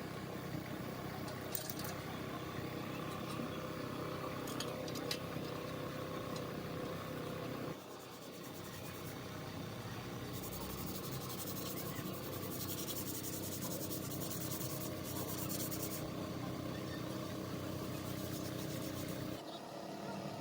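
A machine running with a steady hum, with a few faint clicks; the sound changes abruptly twice.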